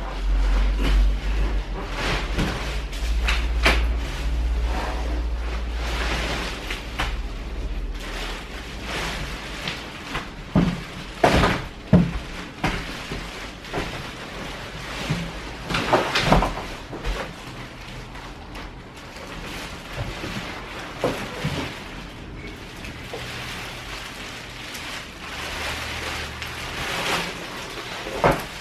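Plastic wrapping and foil crinkling and rustling against a cardboard box as a pushchair is pulled out of it, with scattered knocks and clicks from its frame and wheels bumping the box, and a deep rumble during the first several seconds.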